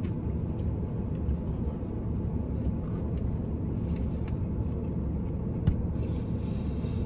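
Steady low rumble of a parked car idling, heard from inside the cabin. A few faint clicks of a fork on a takeout container come over it, with one sharper click near the end.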